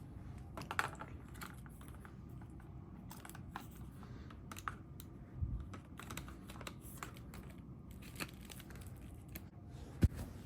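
Hard plastic vacuum parts being handled and knocked together as the wand is fitted onto an upright vacuum: scattered light clicks and rattles, then one sharp click near the end as it snaps into place.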